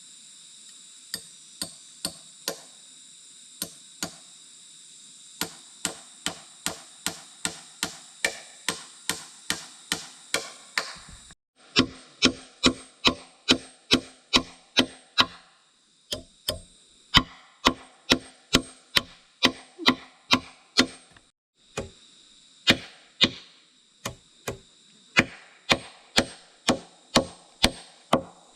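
A hand tool striking wood over and over, about two sharp knocks a second. A steady high drone of insects runs behind it and breaks off a few times.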